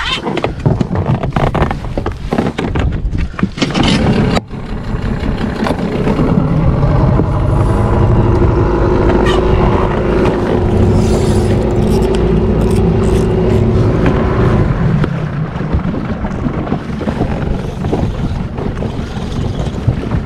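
Wind buffeting the microphone and water slapping against an inflatable boat's hull, with knocks and handling noise in the first few seconds. A steady humming drone sits underneath for several seconds in the middle.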